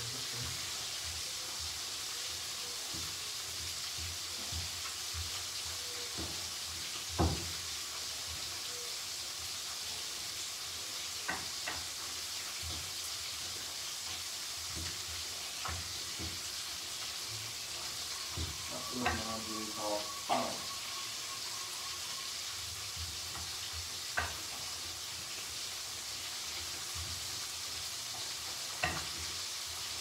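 Food frying in hot oil in a pan, a steady sizzle, with occasional knocks of a utensil against the pan, the loudest about seven seconds in.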